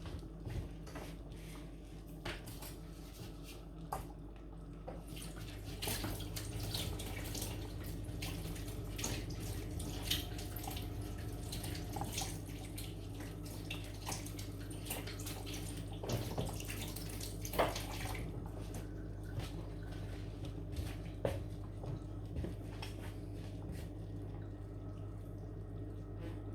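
Chicken foot soup being spooned out of a pot into a bowl: liquid splashing and dripping, with scattered light clinks and knocks of the soup spoon against pot and bowl, over a steady low hum.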